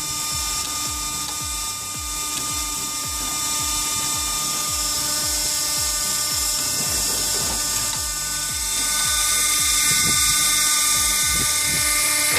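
Wood splitter machine running, a steady mechanical whine with a strong hiss, over background music with a steady low beat.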